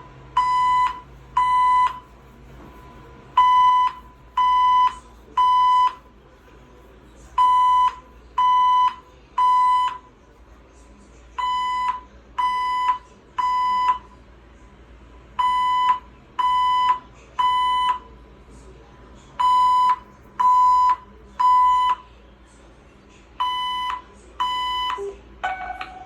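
Building fire alarm sounding the temporal-three evacuation signal: three half-second beeps, then a pause, repeating about every four seconds. Near the end a different, lower tone starts.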